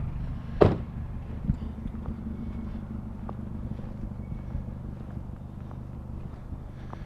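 Vehicle engine idling steadily, with a loud sharp knock a little over half a second in and a smaller knock about a second later.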